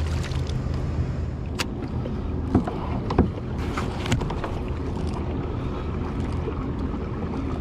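A small fish splashes back into the water at the very start, then a few sharp knocks and clunks on the kayak's hull and gear over a steady low rumble.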